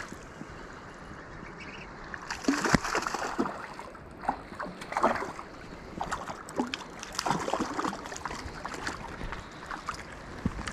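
Steady rush of creek water with scattered short splashes and knocks, as a hooked rainbow trout is fought toward the net.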